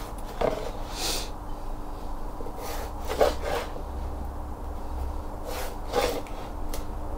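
Black marker pen scratching short lines onto a paper template: about five brief scratchy strokes and rubs, spread through a few seconds, over a faint steady hum.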